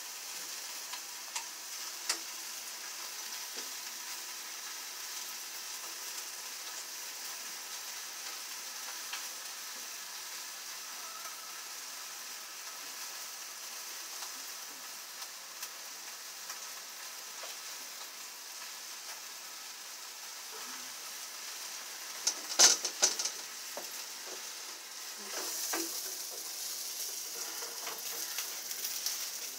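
Food sizzling steadily on a George Foreman electric contact grill. A brief burst of sharp clicks and clatter comes about three-quarters of the way through.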